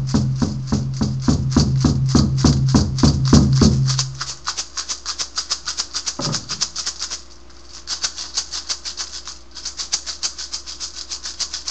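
A rattle shaken in a steady rhythm, about five shakes a second, over a low droning tone that stops about four seconds in; after that the rattle goes on alone and more softly, with a couple of brief pauses.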